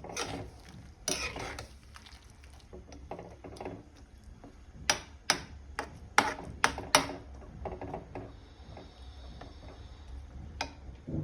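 A spoon scraping and stirring in a cooking pan, with a run of sharp knocks on the pan in the middle.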